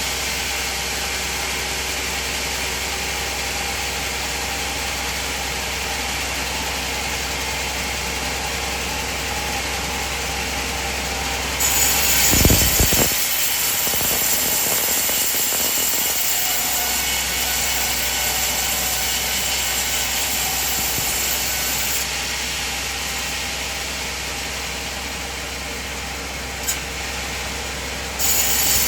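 Sawmill band saw running steadily. About twelve seconds in a brighter, hissier sound comes in with a low thump, as of the blade cutting through a coconut log, and it eases off about ten seconds later; it rises again near the end.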